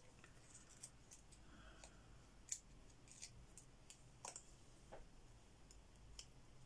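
Faint, scattered light clicks of small cardstock pieces and foam adhesive dimensionals being handled and pressed onto a handmade card; otherwise near silence. The sharpest click comes about two and a half seconds in.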